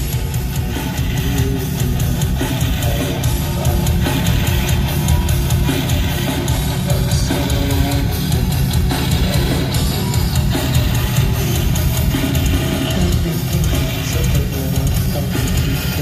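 Heavy metal band playing live over an arena PA, heard from within the crowd: loud distorted electric guitars over a drum kit, with a heavy low end throughout.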